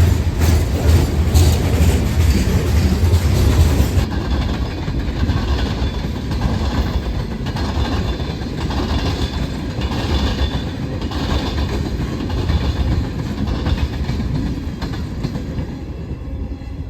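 A train passing close by, its wheels clacking over the rail joints with a heavy rumble.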